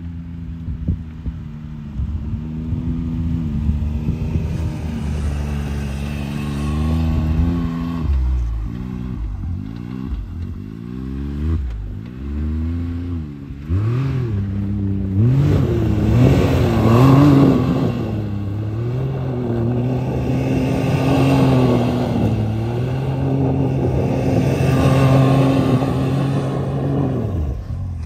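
Can-Am Maverick X3 side-by-side's three-cylinder engine revving up and down in repeated surges as the throttle is pumped through donuts on snow. It is louder from about halfway through.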